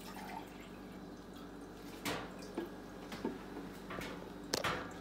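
Water poured from a plastic pitcher into a glass measuring cup, trickling and splashing, with a few short, sharper sounds about two seconds in and near the end.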